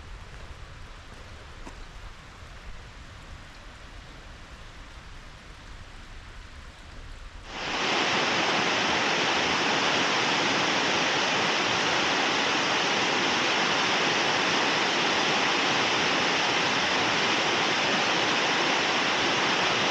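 Steady rushing of falling water from a waterfall in a gorge. It is faint at first, then cuts in abruptly much louder about seven and a half seconds in and holds even from there.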